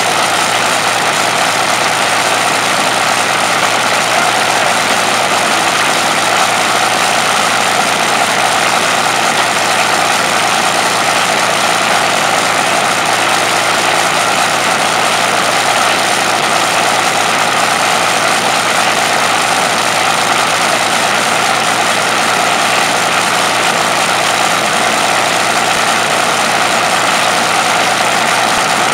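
Rolls-Royce Merlin V12 aero engine running steadily on a test stand, propeller turning, its exhaust coming straight out of short open stacks. The sound is loud and dense, with no change in pace.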